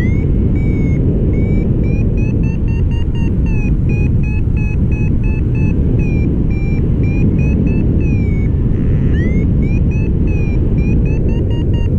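Paragliding variometer beeping its climb tone, rapid short beeps that wander up and down in pitch as the glider climbs in a thermal; the beeping stops briefly near the end and restarts with a rising chirp. A steady low rumble of wind on the microphone runs underneath.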